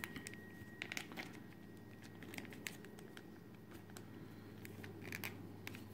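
Faint, scattered small clicks and taps of PVC figure parts being handled and fitted together, over a low steady hum.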